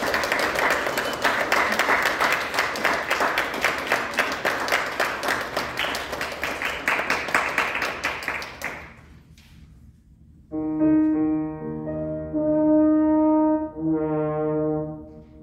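An audience applauds for about nine seconds, and the applause dies away. After a short pause, a French horn begins playing, with long held notes.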